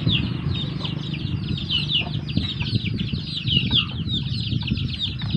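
Many small birds peeping continuously in quick, high, falling notes, several a second, over a low rustling and bumping from the chicken being handled.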